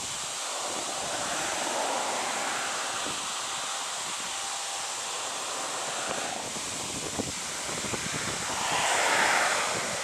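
Diesel engines of two Fendt tractors, a 936 Vario and a 714 Vario, working under heavy load as they pull a Panter deep plough through the soil: a steady rushing noise that swells near the end as the tractors come closer.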